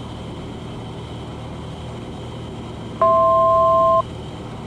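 Steady low drone of a Cessna 182's engine and cabin noise heard through the intercom. About three seconds in, an electronic beep of two steady pitches sounds once, lasting about a second.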